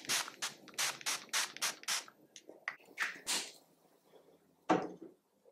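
Fine-mist pump spray bottle of primer spray spritzed at the face: a quick run of about eight short hissing sprays in the first two seconds, then a few more about three seconds in and one last near the end.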